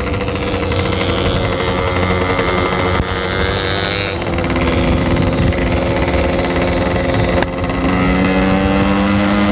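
Yamaha RX-King's two-stroke single-cylinder engine running under throttle while riding. Its pitch climbs steadily in stretches, broken by short dips about four and seven and a half seconds in.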